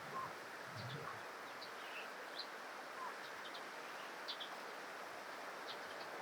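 Short, high chirps of small birds, scattered and irregular, over a steady outdoor hiss, with a soft low thump about a second in.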